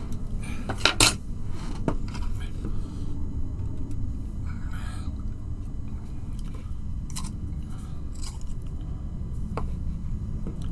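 Scattered clicks and taps of small plastic model-kit parts and tools being handled on a workbench, with two sharp clicks about a second in, over a steady low hum.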